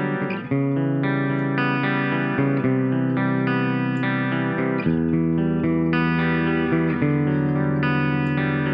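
Electric guitar music track playing held chords that change about every second, with a deeper low end coming in about halfway through. It is heard through the Brainworx bx_Stereomaker stereo-widening plugin while its stereo expansion is being tried.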